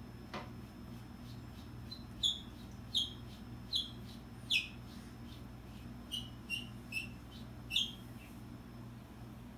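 A small bird chirping: eight short, high chirps, each sliding down in pitch, in two runs of four, over a steady low hum.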